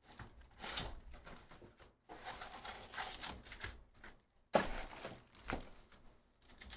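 A cardboard hobby box of foil-wrapped trading card packs being opened and emptied: cardboard scraping and packs sliding and crinkling against each other in irregular rustles, with one sharp knock about four and a half seconds in.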